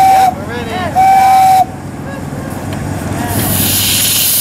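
Steam whistle blowing two short blasts on one steady note, the second about a second in. From about three seconds in comes a steady hiss of steam being let off.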